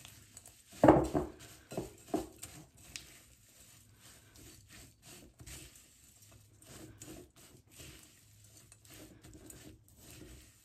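A spatula stirring a stiff mix of rolled oats and peanut butter in a glass mixing bowl: irregular soft scraping and rustling strokes, with a loud knock about a second in and two lighter ones soon after.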